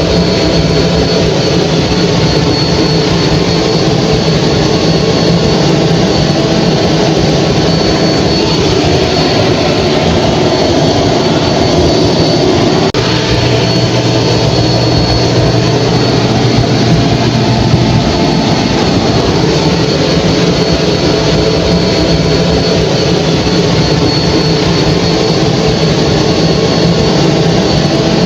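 Hair dryer running steadily: a loud, even blowing hiss with a low motor hum and a faint high whine.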